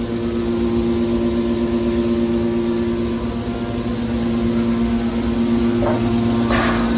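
Hydraulic metal baler's power unit running with a steady hum, with two brief noises near the end.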